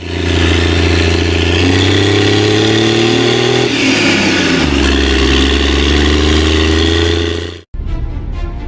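MB Trac 1300 Turbo's six-cylinder turbo diesel running at high revs; the revs drop about four seconds in, then hold steady. It cuts off abruptly near the end as music begins.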